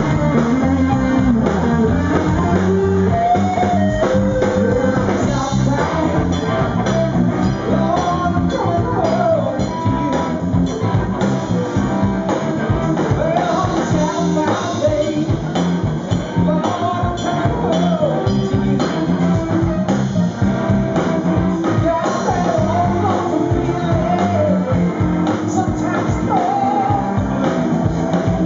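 Live rock band playing: Les Paul-style electric guitar, bass and drums, with a man singing lead into a microphone.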